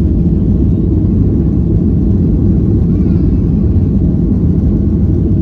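Steady low rumble inside a passenger airliner's cabin, even throughout.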